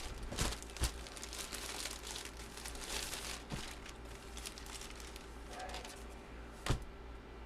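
Packaging crinkling and rustling as items are pulled out of their boxes, with a few sharp knocks: two close together near the start and a louder one near the end.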